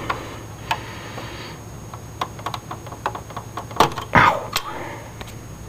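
Scattered light clicks and taps from hands handling cables, connectors and plastic parts inside a desktop computer case, with a louder knock about four seconds in.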